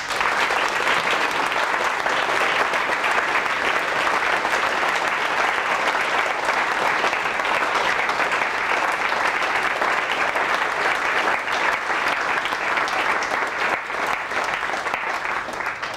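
A roomful of students applauding, the clapping breaking out at once and holding steady before thinning out near the end.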